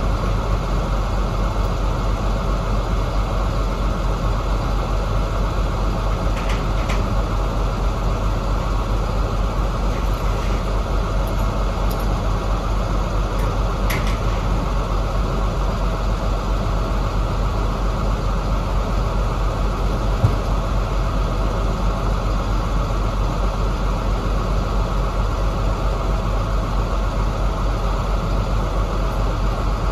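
KamAZ truck's diesel engine running steadily at a constant pace, with one short click about two-thirds of the way through.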